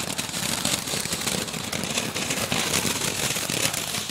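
Ground fountain firework (anar) spraying sparks: a steady hiss with many fine crackles.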